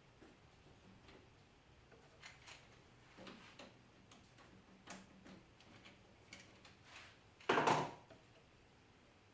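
Light clicks and knocks of the plywood hose-clamp fixture and hose being handled and fitted on the drill press column, with one louder scrape or rustle near the end.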